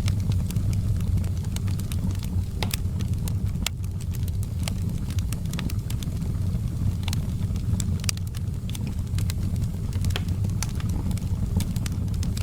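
Wood fire crackling in a fireplace: irregular sharp pops and snaps over a steady low rumble of burning logs.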